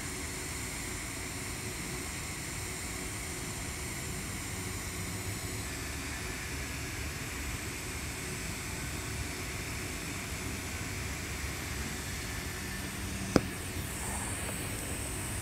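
TIG welding arc on carbon steel pipe during the cap pass, a steady hiss with a faint hum. Near the end the arc goes out, with a single sharp click.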